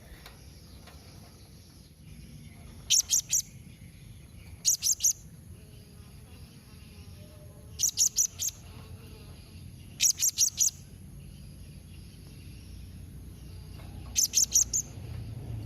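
Blue-crowned hanging parrot (serindit) calling: five short bursts of three or four rapid, high-pitched notes, spaced a couple of seconds apart, over a faint steady high-pitched tone.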